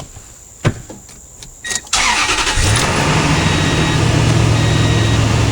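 Toyota Tundra engine starting on a freshly fitted battery: after a click or two, the engine cranks briefly about two seconds in and catches at once, then settles into a steady idle. A short warning beep repeats evenly over the idle.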